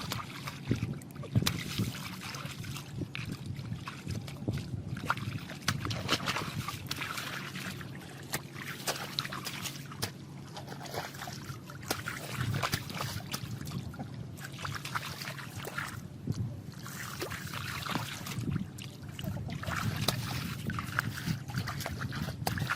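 Water splashing, sloshing and trickling, with many small knocks and clicks throughout.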